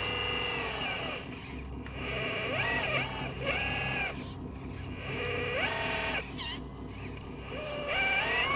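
Electric motor whine from an RC construction machine, gliding up in pitch, holding, then dropping back several times, over a low steady hum.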